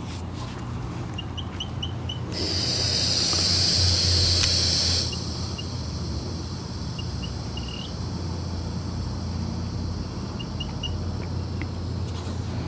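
Nitrogen hissing through a refrigerant hose into a repaired AC suction line set for about three seconds, starting about two seconds in and cutting off suddenly, as the line is pressurised for a leak test. A steady low hum runs underneath, with faint bird chirps in short runs.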